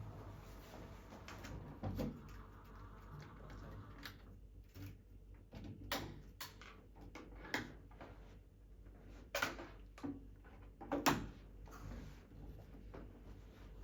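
A handful of separate sharp knocks and clunks, spaced a second or more apart, over faint low background noise in a small room.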